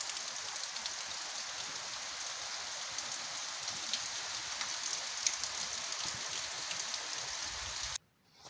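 Steady rain falling: an even hiss with scattered faint drop ticks, which cuts off suddenly near the end.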